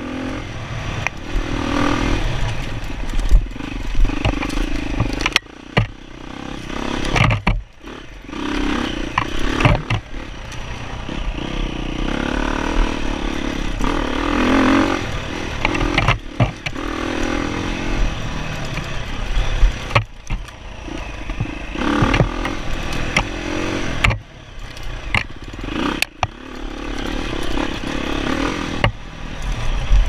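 Off-road dirt bike engine revving up and down as the throttle is worked over rough trail. The engine drops off briefly several times, and sharp knocks and clatter come from the bike over bumps.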